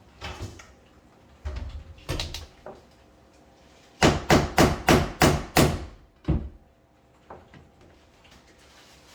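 Hammer tapping a paint-stuck brass door hinge to knock it free: a few scattered knocks, then about halfway through a quick run of about six sharp strikes and one more just after.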